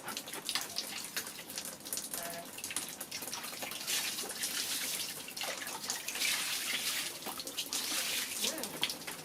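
Water running from a tap and splashing during a bath, with many small splashes. It is louder for a few seconds from about four seconds in.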